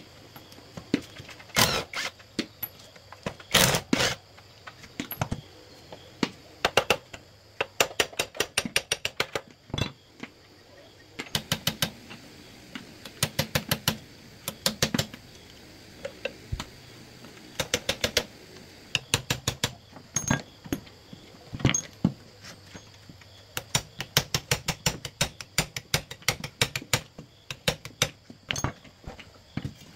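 Hand tools working on metal tractor parts: a long series of sharp metallic clicks and knocks, many in quick runs of several a second, with a few heavier knocks in the first few seconds.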